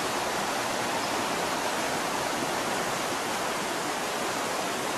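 Creek water rushing fast over rocks in a steady, even rush.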